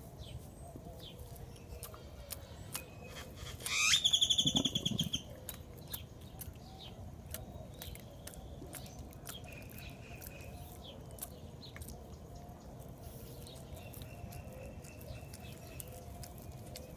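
Howler monkeys chewing biscuits, with scattered lip-smacking clicks throughout, a sound of contentment. About four seconds in, a loud high whistled bird trill glides up and holds one pitch for about a second, with a short low sound just after it; fainter high bird whistles come later.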